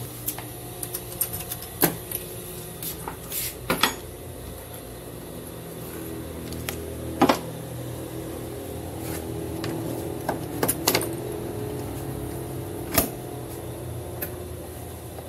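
Scattered sharp clicks and knocks of hands handling a domestic sewing machine and its parts at the needle plate, over a steady low hum.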